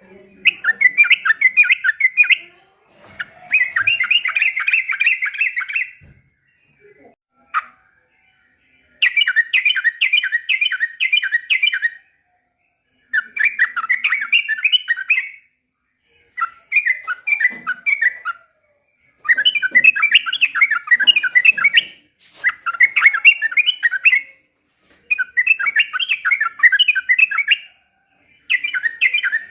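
Yellow-vented bulbul (trucukan) singing in about nine bouts of two to three seconds each, every bout a rapid run of chattering notes, with short pauses between.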